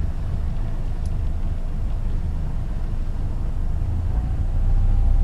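Sailboat's inboard engine running steadily, getting louder about four seconds in, as it motors ahead in gear against the spring line to pull the boat in alongside the pontoon.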